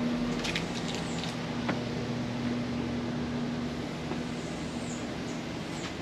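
Steady engine hum with its low drone held on one pitch throughout, over general street background noise, with a few faint clicks.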